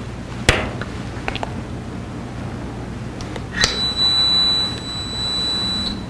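A few light clicks of the sensor and target being handled on a metal test fixture. About three and a half seconds in, a louder click is followed by a steady, high-pitched electronic beep lasting about two seconds: the fixture's signal that the inductive proximity sensor has switched on at the target.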